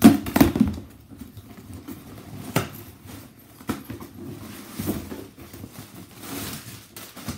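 A cardboard shipping box being handled and opened by hand: a few separate sharp knocks and clicks, the loudest cluster in the first half-second, with fainter rustling of the cardboard flaps near the end.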